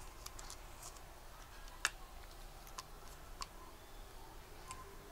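Faint, scattered clicks and taps of a small plastic bottle being handled in the fingers, the loudest a sharp click about two seconds in.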